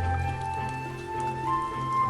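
Soft background music: held instrumental notes over a slow-changing bass line.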